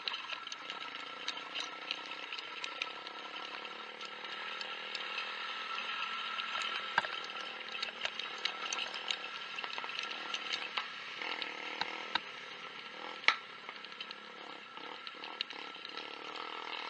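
Motorcycle riding over a rough dirt trail, heard from a bike-mounted camera: a steady engine hum under constant rattling and clicking from the bumps. A few sharper knocks stand out, the loudest near the end.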